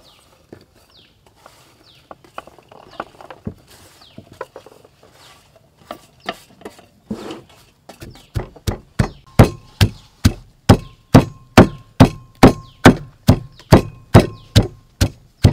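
Wooden pestle pounding sliced lemongrass and other curry-paste spices in a clay mortar: steady, loud strikes about two a second, starting about eight seconds in. Before that there are only light scrapes and small knocks as the chopped ingredients are pushed off a metal plate into the mortar.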